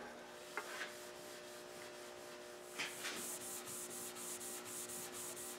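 Steel wool pad loaded with paste wax rubbed back and forth over the finished surface of a mahogany table leaf: a faint scratchy rubbing that settles into quick, even strokes, about four a second, from about halfway through. This is the rubbing-out of the final finish, knocking down nits.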